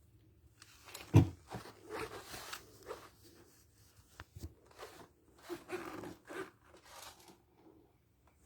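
Hands handling tools and gear: irregular rustling and small clicks, with one sharp knock about a second in.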